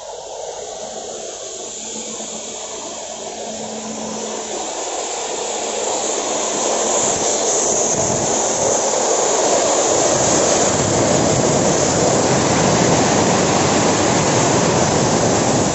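High-pressure water jet from a sewer jetting machine hissing as it blasts and sprays onto gravel ground. It grows louder over the first several seconds, then holds a steady hiss.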